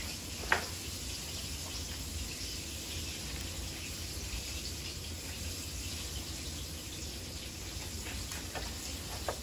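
Kitchen tongs click sharply once against a white serving dish about half a second in, and twice more faintly near the end, as fried pieces are laid on the plate. A steady hiss and a low hum run underneath.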